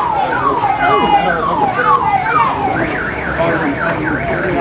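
Electronic alarm siren cycling through its tones. It sweeps down in pitch about twice a second, then switches to a quicker up-and-down warble about three seconds in.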